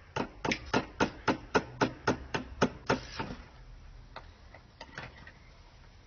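A plastic toy cup held in a cockatoo's beak knocking against plastic toys: a quick run of sharp hollow knocks, about five a second for three seconds, then a few lighter clicks.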